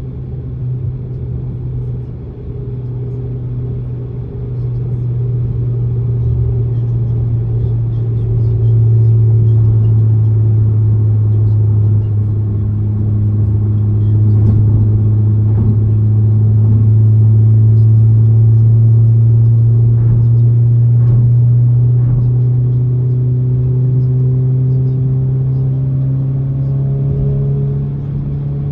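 Honda Civic Type R FL5's turbocharged 2.0-litre K20C four-cylinder engine running steadily, a low drone that grows louder about eight seconds in and edges up in pitch near the end.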